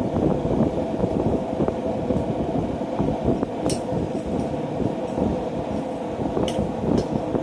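A steady low rushing noise with three light metallic clinks, one about halfway through and two close together near the end, in a blacksmith's shop.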